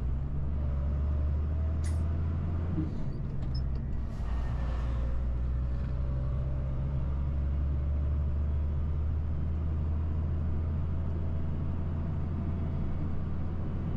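Freight truck's engine running steadily while driving, heard from inside the cab as a low drone, with a short hiss of air about four seconds in.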